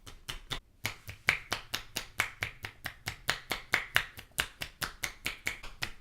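Percussive crack massage on the neck: hands with thumbs overlapped and fingers spread strike in quick succession, each blow giving a sharp crack, about five a second in a steady rhythm with a brief pause near the start.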